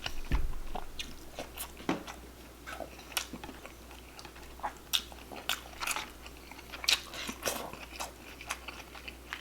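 Close-up eating sounds: a person chewing and biting food, with irregular sharp clicks scattered throughout.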